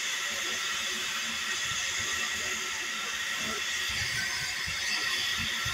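Stationary steam tank locomotive blowing off steam from its safety valves: a steady hiss of escaping steam at an even level.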